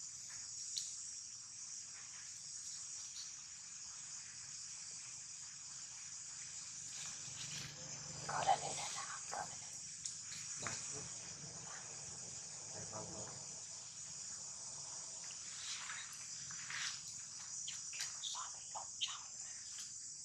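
Steady high-pitched insect chorus, with scattered short faint sounds over it, the loudest about eight seconds in.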